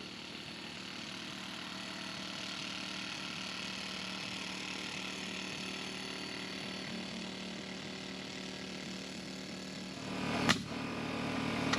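Steady mechanical hum with fixed tones, and a single sharp crack near the end.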